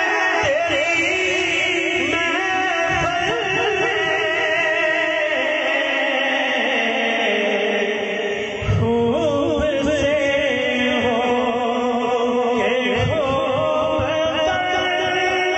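A man singing an Urdu/Punjabi devotional song into a microphone, the voice amplified through a sound system, holding long wavering, ornamented notes. Low thumps of accompaniment come in now and then.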